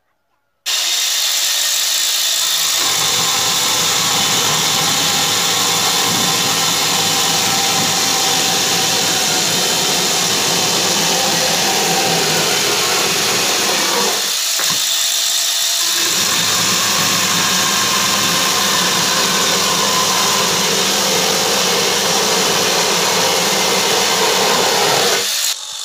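Angle grinder converted into a small chainsaw, running at speed as its chain cuts through a wooden board: a loud, steady power-tool whine. It starts suddenly under a second in, with a short dip in the lower part of the sound about halfway through.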